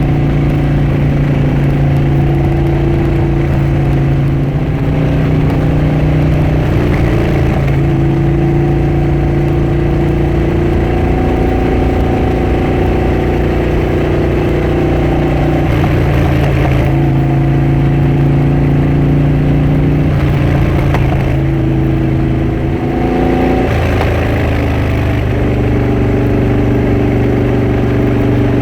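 Harley-Davidson Dyna Switchback's air-cooled V-twin engine and exhaust running while the bike is ridden. The engine note holds steady for a few seconds at a time, then steps up or down several times as the speed and throttle change.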